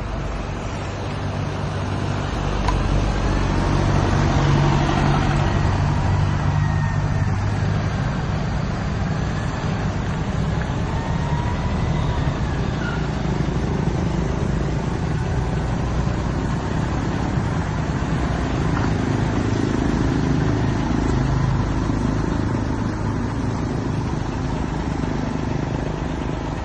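Diesel engine of a tractor-trailer truck running at low speed during a parking manoeuvre. The engine gets louder about two seconds in, then eases, and rises again later.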